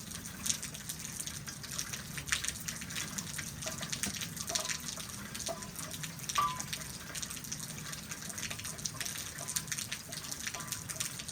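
Steady rain falling, with many separate sharp drop hits close by, as from drips off a small roof canopy.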